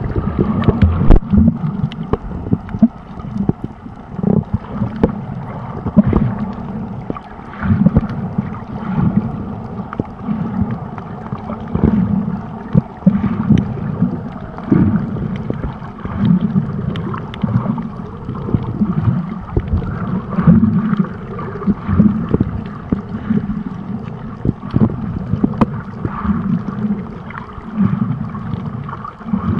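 Water moving around a camera held underwater: a muffled rushing that swells and fades every second or two, with scattered sharp clicks.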